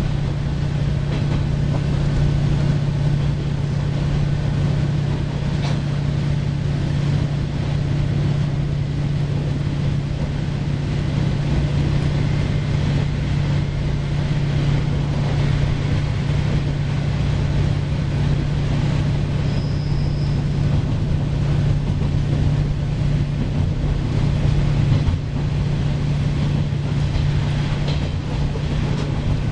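JR Shikoku KiHa 40 series diesel railcar running, heard from inside the car: a steady low drone from the diesel engine under the noise of the wheels on the rails.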